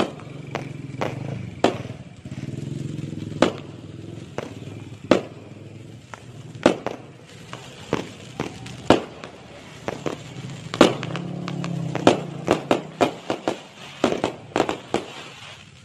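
Aerial fireworks bursting overhead: single sharp bangs every second or two, then a quick run of bangs and crackles near the end, over a low steady hum.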